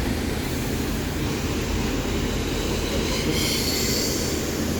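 Heavy vehicle running with a steady low rumble, joined by a higher hiss about three seconds in.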